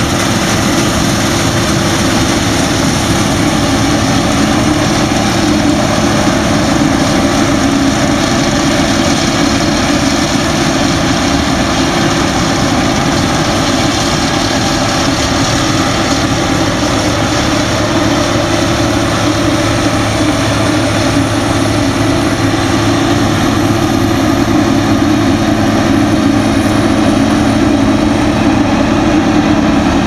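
Claas Lexion combine harvester running steadily at work in a grain field, a loud, even machine drone.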